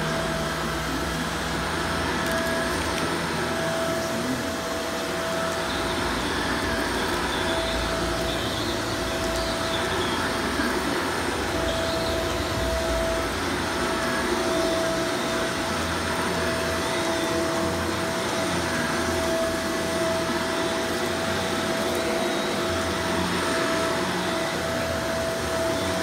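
Shark upright vacuum cleaner running steadily while pushed back and forth over carpet, its motor whine dropping in and out.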